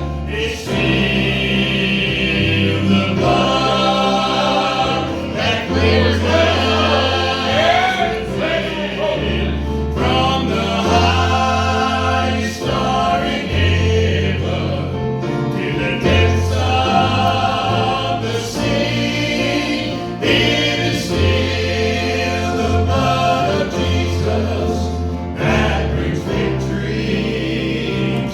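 Gospel vocal group singing in harmony over instrumental backing, with a prominent bass line that steps from note to note and regular percussive hits.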